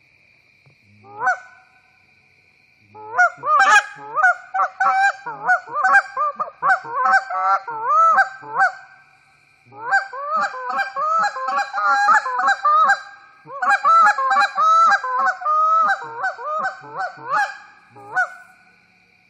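A hand-blown goose call played in quick runs of honks and clucks: one single note, then three long runs with short pauses between them. A faint steady high whine sits underneath.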